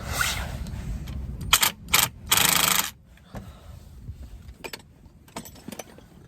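A cordless impact gun running the brake caliper bolts in three short bursts, the last and longest about half a second, followed by a few light metal clicks.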